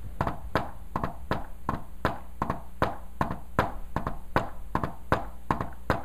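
Hand tapping on a whiteboard in a steady galloping rhythm, about four taps a second. The taps imitate the S4–S1–S2 cadence of a fourth heart sound (atrial gallop).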